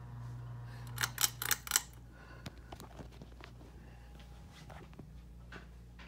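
Hampton Bay Saint Clair ceiling fan's motor humming steadily. About a second in comes a quick run of sharp clicks and rattles, after which the hum drops and a few light clicks follow.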